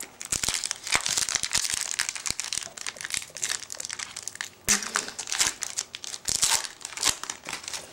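Foil wrapper of a Bowman Chrome trading-card pack being torn open and crinkled in the hands, a dense crackle with many sharp little crackles.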